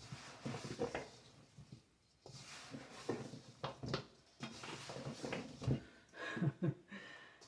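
Spoon stirring sliced apples coated in sugar, flour and spices in a mixing bowl: irregular scrapes and clacks against the bowl.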